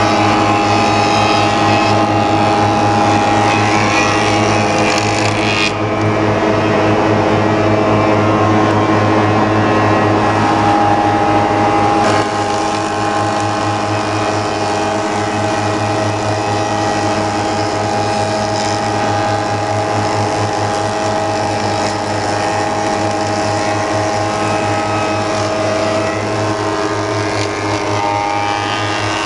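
Four-sided planer-moulder running, with its motors and cutter heads giving a steady multi-tone hum over the noise of boards being planed and profiled as they pass through the feed rollers. The sound eases slightly about twelve seconds in.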